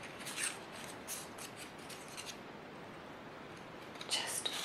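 Construction-paper stencil cut-outs rustling and crinkling as hands handle them on watercolour paper: a run of short crisp crinkles in the first two seconds, a lull, then a flurry of handling near the end.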